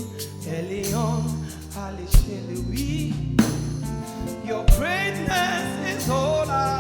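Live gospel praise music: a singing voice holding wavering notes over sustained low bass notes, with a few drum hits.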